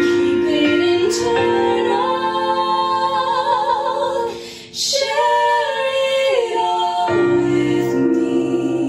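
Female vocals singing long held notes with vibrato over musical accompaniment, with a brief pause about halfway.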